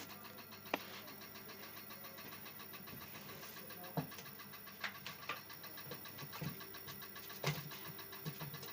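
Car engine idling with a fast, even ticking knock from inside the engine, with a few louder sharper clicks now and then. The cause of the knock is unknown.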